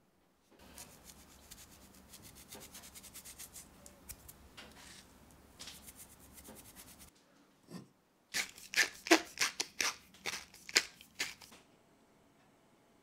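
Ground rock salt being handled and sprinkled over raw chicken thighs in a steel tray: a fine, dense crackle of salt grains for several seconds. After a thud, a run of about ten louder, sharp crunches follows about three quarters of the way through.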